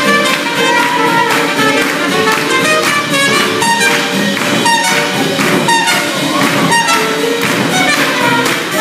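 Live swing jazz band playing an up-tempo tune, horns over guitar and a steady drum beat.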